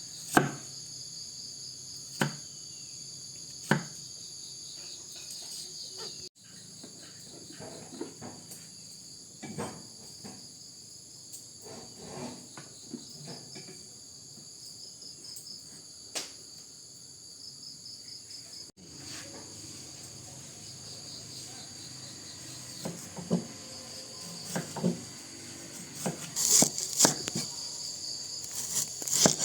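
Insects chirring steadily in high, pulsing tones, with scattered sharp knocks and thuds that come in a cluster near the end.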